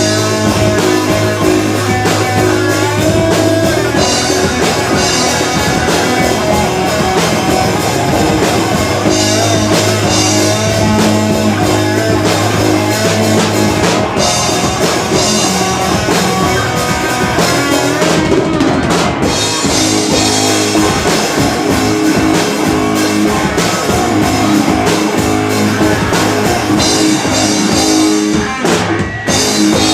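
Live rock band playing: drum kit and electric guitar over a steady beat.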